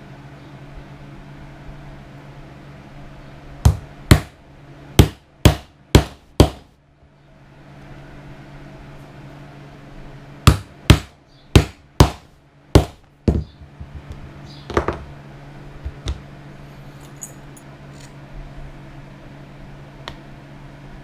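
Hammer blows on a leatherworking tool during belt making: two runs of about six sharp strikes, roughly two a second, then a few lighter taps. A steady low hum runs underneath.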